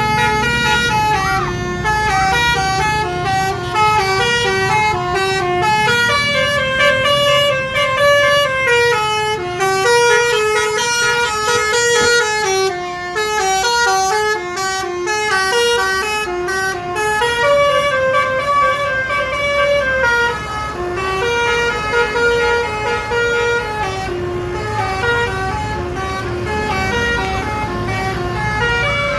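Telolet horn on an SJM Trans bus: a bank of air horns playing a tune, the notes stepping up and down without a break, over low road and engine rumble.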